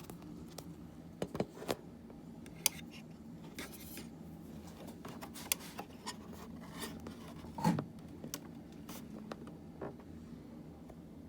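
Scattered small clicks, taps and scrapes from hands handling parts of an all-in-one computer during a hard drive replacement, over a steady low hum. One louder knock comes about seven and a half seconds in.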